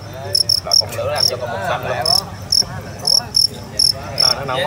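Fighting crickets chirping in the arena: about ten short, sharp chirps, irregularly spaced.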